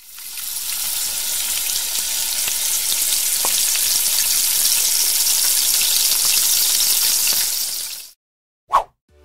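Dough twists deep-frying in hot oil in a wok: a dense, steady sizzle and crackle of bubbling oil that fades in at the start and cuts off abruptly about a second before the end. A single short tone follows.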